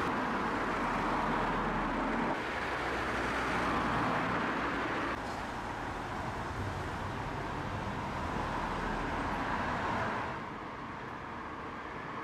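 Steady background hum of road traffic, a continuous rushing noise with no single vehicle standing out; it drops a little in level about ten seconds in.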